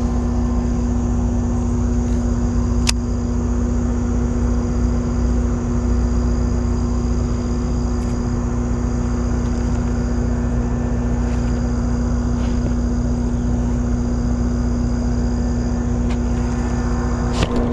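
A steady, unchanging machine hum over a low rumble, like a motor running at constant speed, with a couple of faint clicks.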